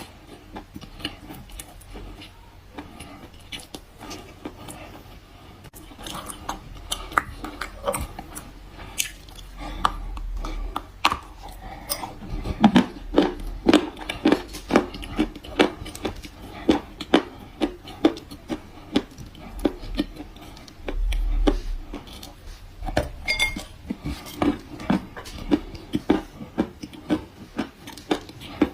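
Dry kaolin clay chalk being bitten and chewed close to the microphone: sharp crackling crunches, sparse at first, then a steady run of louder crunches about a second apart from about twelve seconds in.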